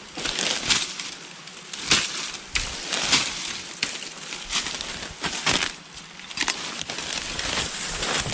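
Rustling and snapping of leaves and twigs being moved through or handled, with irregular sharp cracks scattered throughout.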